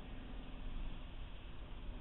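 Steady low rumble with an even hiss: distant city street ambience, with no single distinct event.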